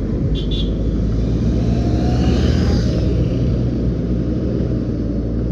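JCB 3DX backhoe loader's four-cylinder diesel engine running steadily, a low rumble that swells briefly about two seconds in.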